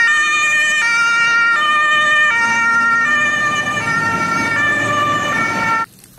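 Two-tone siren of a German fire engine, alternating between two pitches about every three-quarters of a second over a low rumble of the truck and traffic. It cuts off sharply near the end.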